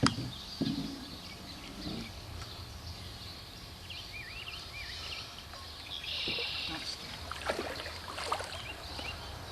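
Canoe on the water: faint paddle splashing and a sharp knock at the start, then a few softer knocks of paddle against hull, with a few short chirps around the middle.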